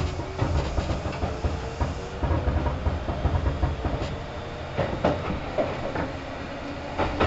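Kintetsu 2800 series electric train heard from inside a car while running: a steady low rumble with a faint whine that climbs in pitch, and sharp clicks of the wheels over rail joints.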